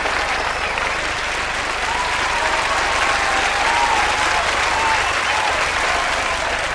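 Large audience applauding, with voices calling out over the clapping.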